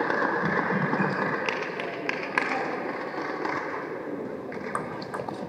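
Steady hall ambience and murmur that slowly fades. Near the end come a few sharp clicks of a table tennis ball off bat and table as the serve and rally begin.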